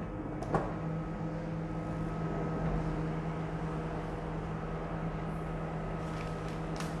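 Dial-controlled countertop microwave oven running with a steady hum while it heats a bowl of white chocolate, with a click about half a second in as it gets going.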